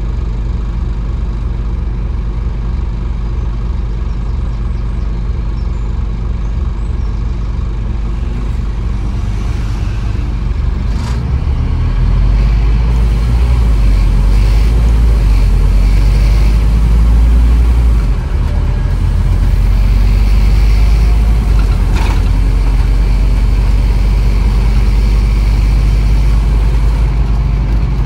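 Scania N230UB OmniCity bus's five-cylinder diesel engine idling with a steady low throb, then pulling away about eleven seconds in and running louder under load, with a short dip near eighteen seconds as the gearbox changes up. A couple of sharp clicks stand out over the engine.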